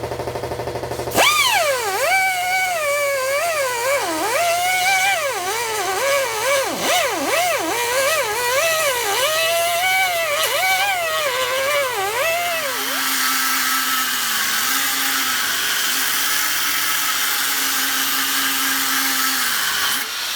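A power cutting tool cutting steel bracket stock: its high whine sags and recovers over and over as the wheel bites into the metal. For the last several seconds this gives way to a steady hissing cutting noise.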